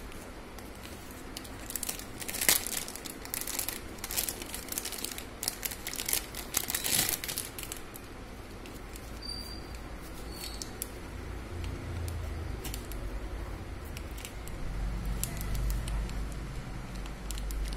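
Plastic wrapping crinkling and rustling as bangles are unwrapped by hand. The crackling is densest in the first half, loudest about two seconds in, and then settles into quieter handling.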